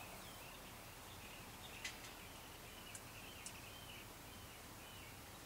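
Faint, quiet yard ambience with a bird chirping and twittering through most of it. A few light, sharp clicks cut in, the loudest about two seconds in.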